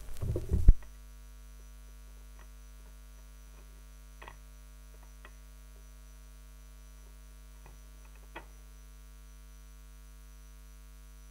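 A loud low thump about half a second in, after which the record's surface crackle stops. A steady electrical mains hum from the playback system remains, with a few faint clicks.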